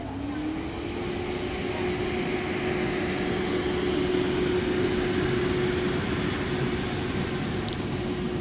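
Electric air blower keeping a giant inflatable inflated: a steady motor hum over rushing air, its pitch dipping and climbing at the start before holding level.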